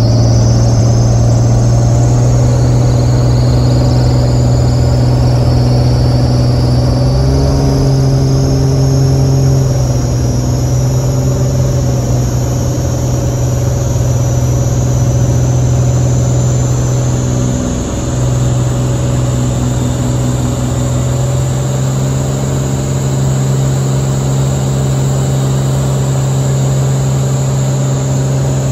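Light aircraft's piston engine and propeller at full takeoff power, heard inside the cabin as a loud, steady drone through the takeoff roll and climb-out. The drone steps up slightly in pitch about seven seconds in, and a faint high whine rises slowly throughout.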